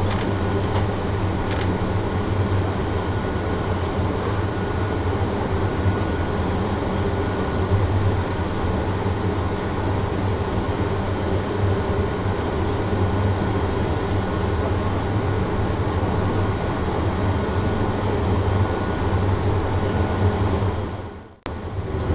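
Steady cabin noise inside an Airbus A350-900, its Rolls-Royce Trent XWB engines idling, with a low hum and a faint steady whine. The sound dips away for a moment near the end.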